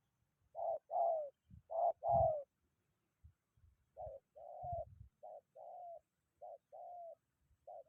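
Spotted doves cooing: two loud paired coos in the first couple of seconds, then a softer, quicker run of short coo phrases.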